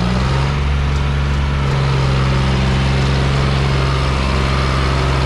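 John Deere tractor's diesel engine held at steady high revs as it strains to pull a heavily loaded trolley stuck in mud.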